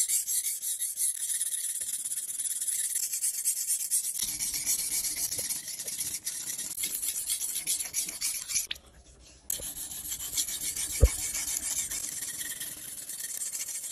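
Steel blade of a yanagiba, a single-bevel Japanese knife, scraping back and forth over a whetstone in quick sharpening strokes. The blade is laid flat and lifted slightly to hone its micro bevel. The scraping stops briefly about nine seconds in, and a single knock comes about two seconds later.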